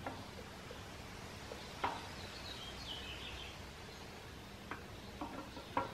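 A steel camshaft being slid by hand out of a GM 5.3 V8 block, giving a few faint clicks and knocks as its lobes and journals touch the cam bearings, about 2 s in and several near the end. Faint bird chirps sound in the background.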